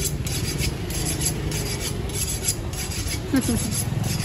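Butcher's knife drawn again and again across a piece of raw pork held in the hand: a quick run of rasping strokes, about four a second, over a steady low hum of market background noise.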